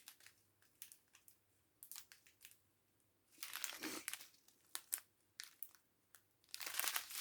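Small plastic bags of diamond-painting drills being handled and crinkled: scattered light clicks and crackles, with two longer rustling bursts, about three and a half seconds in and again near the end.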